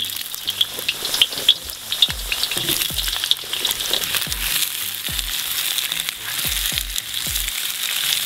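Raw potato wedges sizzling steadily in hot sunflower oil in a cast-iron kazan. From about two seconds in there are repeated dull knocks as a wooden spatula stirs them.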